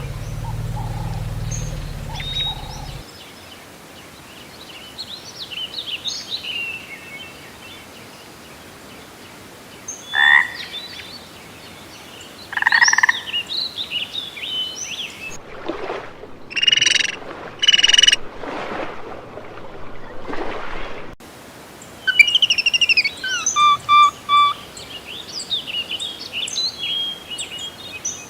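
Frog croaks and bird-like chirps in a string of short calls and quick trills, joined from several clips with abrupt changes, and a low hum during the first few seconds.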